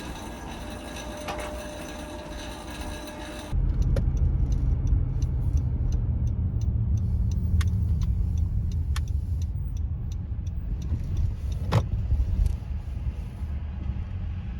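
Car on the move: a steady low rumble of engine and road noise, with a few sharp clicks and ticks, the loudest near the end. It starts abruptly about three and a half seconds in, after a quieter steady hum.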